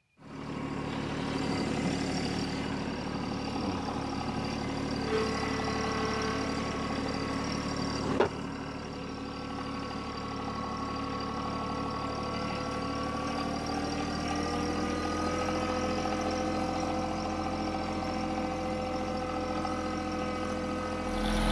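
TYM T264 compact tractor's diesel engine running steadily while the tractor pulls a seed planter at a crawl, with its pitch rising slightly about two-thirds of the way through. A single sharp click sounds about eight seconds in.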